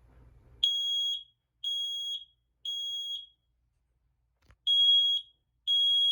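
Kidde i9010 smoke alarm sounding its test signal: high-pitched beeps in the temporal-three evacuation pattern. It gives three half-second beeps about a second apart, a pause, then the next group of three begins. A brief click comes just before the second group.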